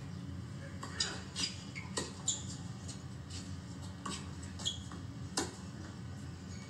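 Tennis rally on a hard court: several sharp pops of the ball being struck by rackets and bouncing, irregularly spaced, over a steady low hum.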